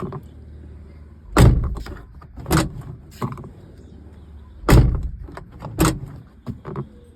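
Hyundai Santro car door being tested after a new outside door handle is fitted: the latch clacks open and the door shuts with a clunk, then again. There are four loud clunks in two pairs, each pair about a second apart, with lighter clicks of the handle and latch in between.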